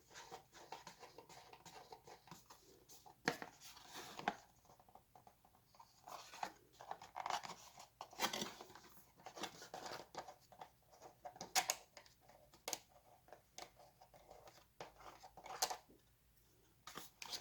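Camera packaging being handled and opened: irregular rustling, crinkling and tearing, with scattered sharp clicks and knocks.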